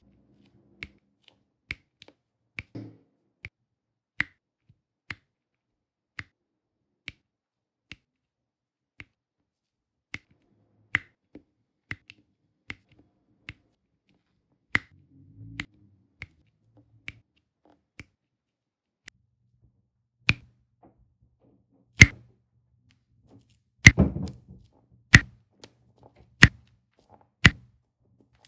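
Diamond painting pen pressing round drills onto the sticky canvas: sharp single clicks about once a second, with a quick cluster of taps about three-quarters of the way through.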